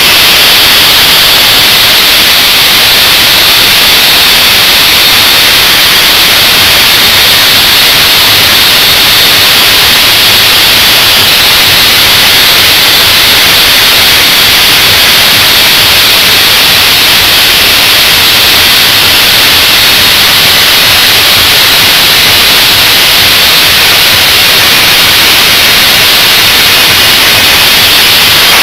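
Angle grinder cutting into the welded steel shell of a hermetic air-conditioner compressor: a loud, steady grinding that runs without a break.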